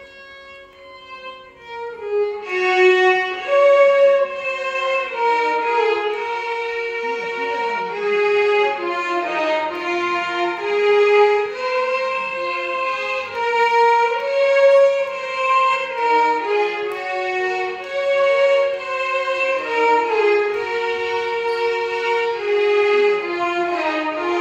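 Violin orchestra playing a Carnatic melody together as one line, with sliding, ornamented notes. It comes in loud about two seconds in after a soft opening.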